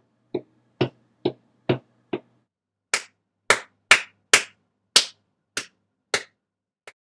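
A series of sharp smacks, about two a second: five lighter ones, a short pause, then eight louder ones.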